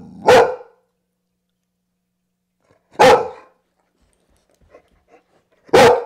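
Young grey dog barking: three single, loud barks spaced a few seconds apart, the last near the end.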